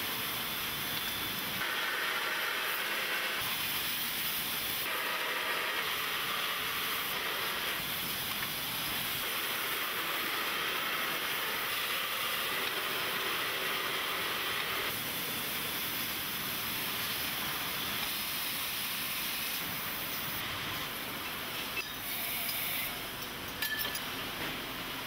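Glass factory machinery making a steady hiss and rush, shifting in tone every few seconds, with a few faint glass clinks near the end.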